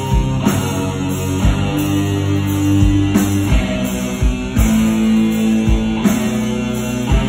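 Live rock band playing: an electric guitar lead with long held notes over bass guitar and drums.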